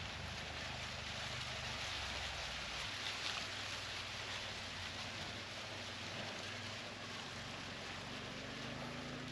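Wind rustling through a field of dry, standing cornstalks as a steady hiss, under a low rumble that eases about three seconds in.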